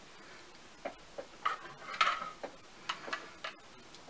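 A makeup brush picking up blue eyeshadow from an eyeshadow palette: a string of light, irregular taps and clicks, with a short scratchy scrape about halfway through.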